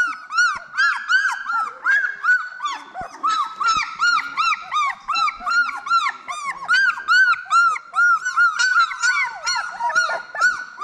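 A litter of two-week-old brindle pit bull puppies crying and squealing together: many short, high-pitched, overlapping cries, several a second, all the way through.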